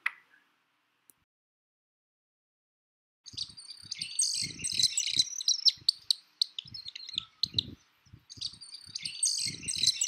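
Pied kingfisher calling: a fast run of short, high-pitched chirps, starting about three seconds in, with low thuds mixed in.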